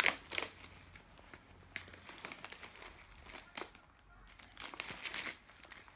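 Plastic wrapping on a sealed box of trading cards being crinkled and torn open, in irregular short crackles, loudest at the start and again near the end.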